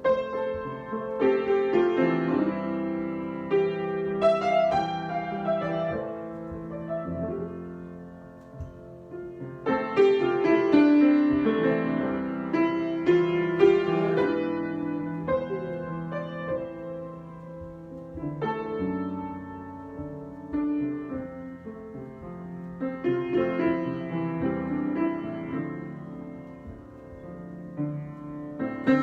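Solo piano improvisation: chords and melodic runs in phrases that build and ease off, the notes left ringing.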